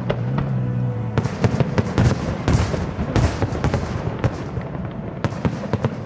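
Aerial fireworks bursting and crackling: a dense run of sharp cracks and pops, with heavier bursts a little past the middle. A brief low held tone sounds in the first second.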